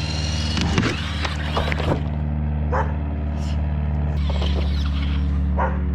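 Electric RC monster truck (ECX Amp MT) motor whining as it speeds up, then a quick run of sharp knocks and clatter as the truck hits and smashes into a makeshift jump, over a steady low hum.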